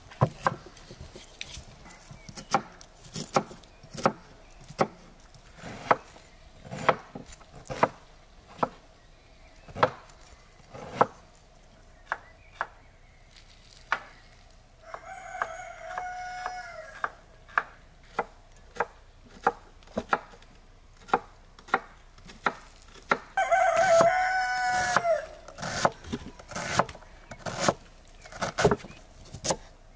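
Kitchen knife chopping onions on a wooden cutting board, sharp knocks about once a second. A rooster crows twice, once about halfway through and again, louder, some eight seconds later.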